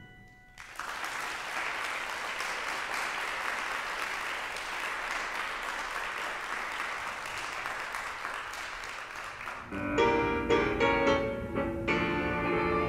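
Audience applauding for about nine seconds. Near the end the clapping stops and piano music begins, with distinct struck notes.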